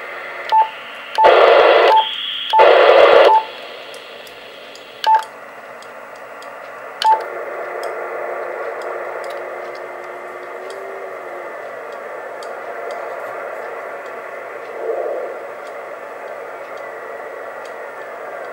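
Yaesu all-mode transceiver's speaker giving receiver static on the 2 m band while it is tuned and switched from sideband to CW. In the first seven seconds there are short beeps from the radio's controls and two loud blasts of static about a second long. After that the hiss narrows and a faint tone slides in pitch as the dial moves. No ARISSat-1 CW beacon is heard in the noise.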